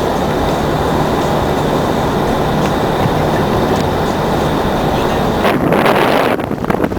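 Loud, steady roar of blizzard wind, with a faint steady hum underneath; from about five and a half seconds in, gusts buffet the microphone.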